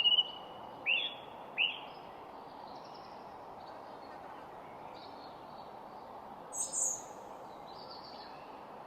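Garden birds chirping over a steady background hiss: several short calls in the first two seconds, two of them sweeping downward, a higher, louder chirp about seven seconds in, and fainter calls between.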